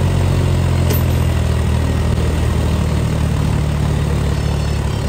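Two diesel tractor engines running steadily with a deep, even drone: a John Deere stuck in paddy mud and a Mahindra towing it out by chain.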